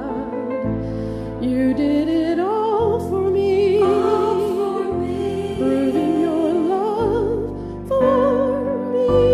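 A woman's voice singing long held notes with wide vibrato, in a slow Christian devotional song, over sustained chords that change every second or two.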